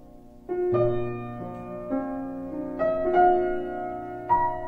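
Background music: slow, gentle piano, a new note or chord struck every half second to a second and left to ring.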